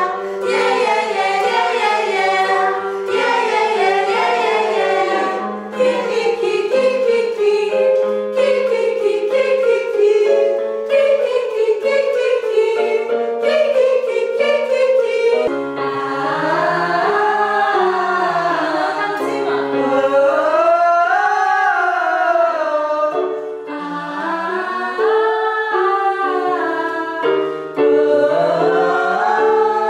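Group of voices singing vocal warm-up exercises, with a keyboard. From about halfway they sing slow rising and falling pitch glides over a steady held note.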